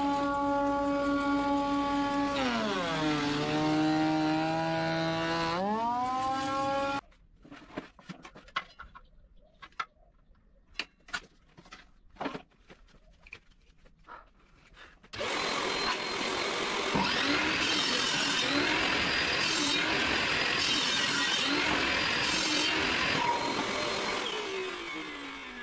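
A power-tool motor whines steadily, drops in pitch under load for a few seconds, then speeds back up. It stops abruptly, followed by scattered knocks of boards being handled. Then a benchtop table saw runs and rips through a wooden board, and its pitch falls as the blade spins down near the end.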